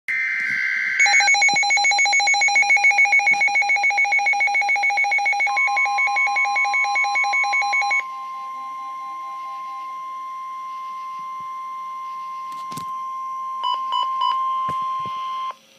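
NOAA Weather Radio alert: a brief SAME data burst, then a fast pulsing electronic alarm beep for several seconds. Under it starts the steady 1050 Hz warning alarm tone, which holds for about ten seconds, with three short beeps near the end, then cuts off. The tones mark the start of a severe thunderstorm warning broadcast.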